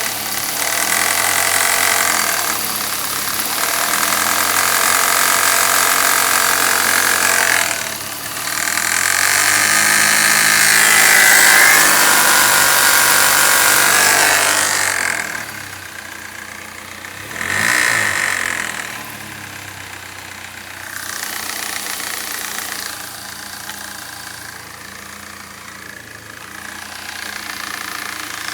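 BMW E36 318is's 1.8-litre four-cylinder engine running and being revved: the revs rise and hold high for several seconds, fall back, blip once briefly, then settle lower. It carries an unidentified engine noise that the owner cannot place.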